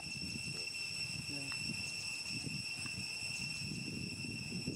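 Steady high-pitched insect trilling with several unbroken tones, over an uneven low rustling rumble. A brief low voice-like sound comes about a second in.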